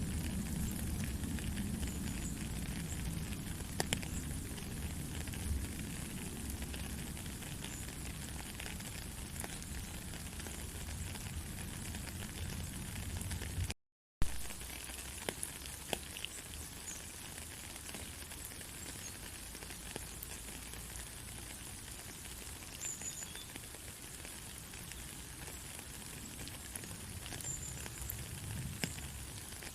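Steady rain falling, a constant hiss with scattered drop ticks. About halfway through the sound cuts out for half a second, and when it returns the low rumble is weaker.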